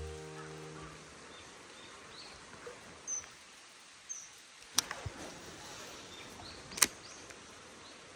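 Background music fades out over the first second. Then quiet outdoor ambience follows, with a few short, high bird chirps and two sharp clicks about two seconds apart, the second one louder.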